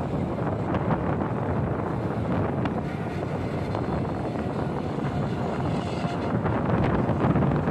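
Wind rushing over the microphone of a moving motorbike, with engine and road noise underneath; steady, getting a little louder near the end.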